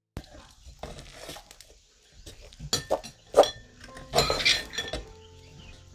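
Scattered light clinks and clatters of hard objects being handled, with two louder clusters about three and four seconds in; soft background music with held notes comes in near the end.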